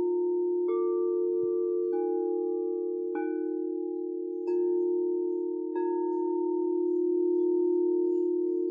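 Frosted quartz crystal singing bowls struck in turn with a padded mallet, five strokes about a second and a half apart. Each stroke adds a new pitch that rings on over the deep sustained hum of the others, and one tone wobbles slowly as it beats near the end.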